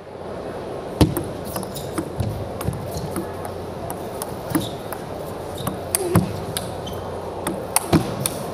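Table tennis rally: sharp, irregular clicks of the ball struck by rubber-faced paddles and bouncing on the table, one to three a second over a faint arena hush. The loudest hits come about a second in and just after six seconds.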